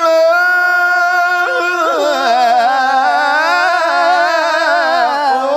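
Male Quran reciter chanting in the melodic tilawah style, drawing out the long vowel of "al-asmā'" in one breath. A steady held note for about a second and a half drops into a lower, wavering ornamented run.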